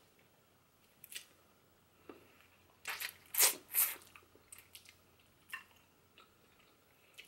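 Close-up chewing and wet mouth clicks of a person eating chicken feet, with a cluster of louder clicks about three seconds in.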